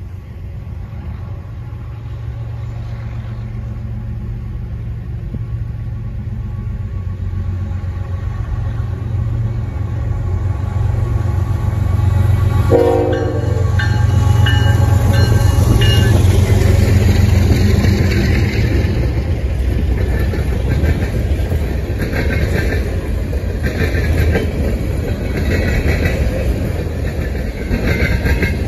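Diesel freight locomotives, a GE ES44AC leading a GE AC44C6M, approaching with a low rumble that grows steadily louder, with a brief horn toot about halfway through as they pass. Grain hopper cars then roll by with a rhythmic clickety-clack of wheels on the rails.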